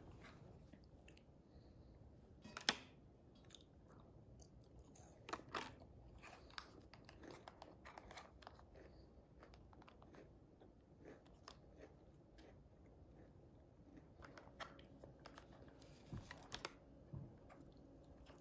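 Faint chewing and crunching of food by a person, with scattered soft clicks. The loudest click is about three seconds in, and there is a small cluster near the end.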